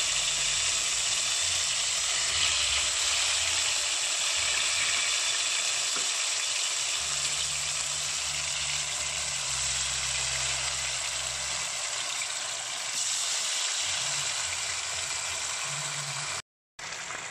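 Marinated chicken drumsticks frying in hot coconut oil in a pan: a steady sizzling hiss. The sound cuts out for a moment near the end.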